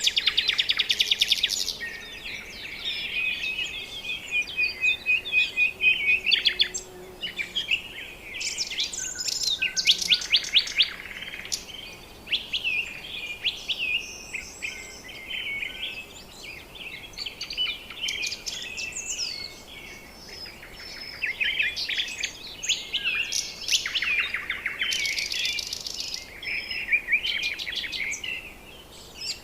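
A chorus of several birds chirping and calling, with high whistled notes and fast rattling trills that come and go.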